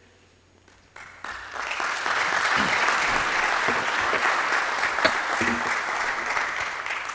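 Audience applauding in an auditorium: the clapping starts about a second in, quickly swells to a steady, dense applause, and begins to fade near the end.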